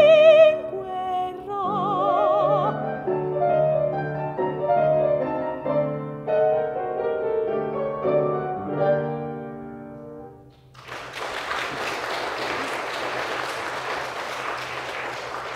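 A female singer's held final note with vibrato ends just after the start. A piano then plays the closing bars of the aria for about ten seconds, followed by an audience applauding.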